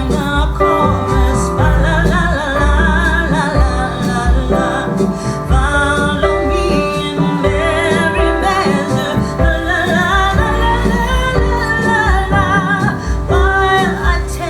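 A song with a woman singing over strong deep bass, played through Yamaha NX-VS10M surround speakers and a Sony SA-WMSP4 active subwoofer.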